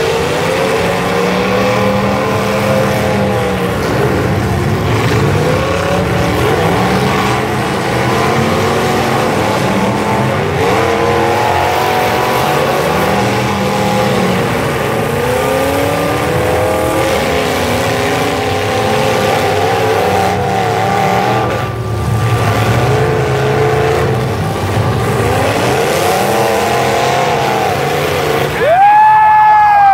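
Engines of several full-size demolition derby cars revving up and dropping back over and over, overlapping one another as the cars ram each other. A loud siren starts about a second before the end.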